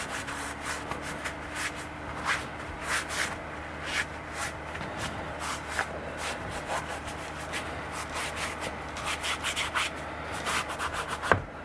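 Cloth rag rubbing over a machined steam locomotive cylinder casting in quick, irregular wiping strokes, degreasing its edges with thinners before painting. A single sharp knock near the end.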